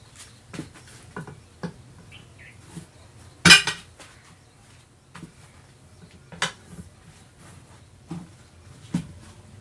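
Iron tyre levers knocking and scraping against the steel wheel rim of an auto-rickshaw as the tyre bead is levered back on: scattered metal clinks, with one loud ringing clank about three and a half seconds in and a smaller one about three seconds later.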